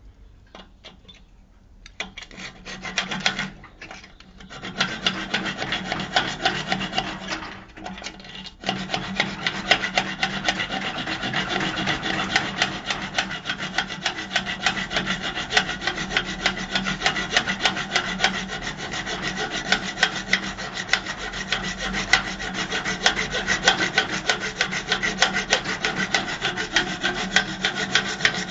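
Rapid, evenly repeated rasping on the removed base column of an old Brastemp washing machine. It comes in short bouts from about two seconds in, then turns into continuous steady scraping from about nine seconds.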